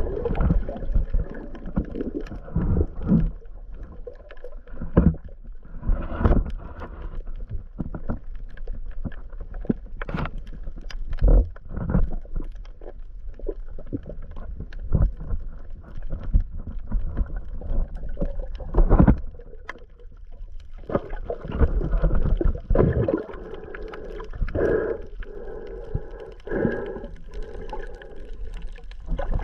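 Water noise picked up by a GoPro Hero 8 held underwater while snorkeling: muffled swishing and sloshing, with irregular louder swells and short knocks as the water moves around the camera.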